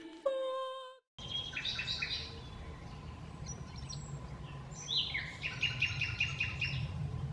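Small songbirds chirping and singing outdoors, with a quick run of repeated notes a little past the middle, over a steady low background rumble. The last note of a short music jingle rings in the first second before a brief silence.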